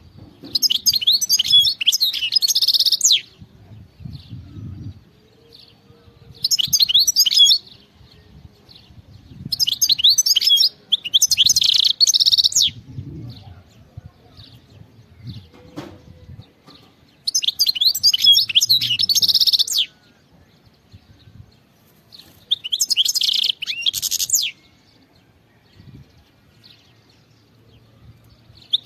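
European goldfinch singing: five bursts of rapid, high twittering song, each one to three seconds long, with pauses between them.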